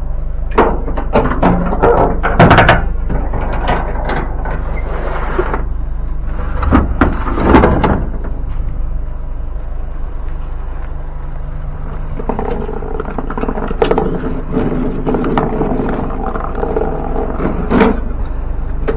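Sharp knocks and clanks as a walk-behind lawnmower is lifted and set into a truck, over the steady low hum of the truck's engine running; the engine sound becomes steadier through the second half.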